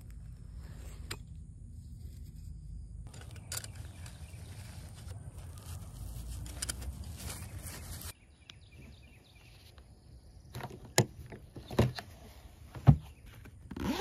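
Low wind rumble on the microphone with light scraping and rustling as a tent stake with a guy-line tensioner is worked in the ground. After a quieter pause come three or four sharp clicks as the hard plastic and metal stake gear is handled.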